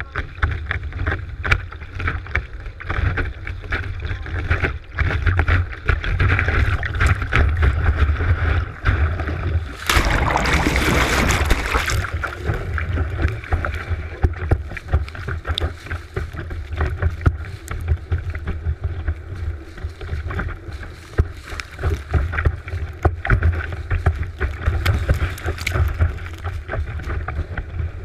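Kiteboard skimming over choppy water, heard through a board-mounted GoPro: a constant low wind rumble on the microphone with crackling spray and water slaps against the housing. About ten seconds in, a louder rush of spray lasts roughly two seconds.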